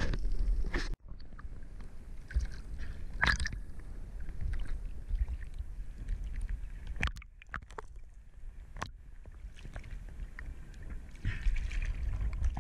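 Sea water sloshing and lapping around an action camera in its waterproof housing, a muffled low rumble broken by scattered sharp clicks and knocks.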